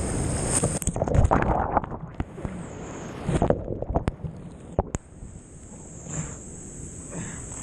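Breaking surf whitewater churning and splashing right at the microphone, with heavy surges about a second in and again about three seconds in. The sound goes dull in the middle, when foam washes over the lens, and clears again after about five seconds.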